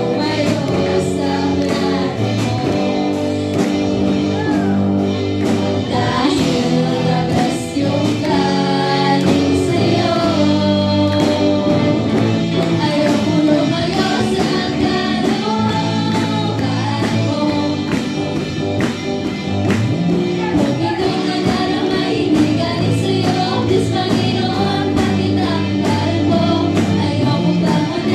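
A live band playing a song with a steady drum beat: two women singing into microphones over electric guitars and keyboard.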